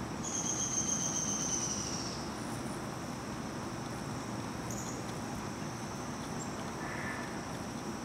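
Insects calling as a steady high-pitched drone over a constant low background rumble, with a louder high note that falls slightly in pitch over the first two seconds.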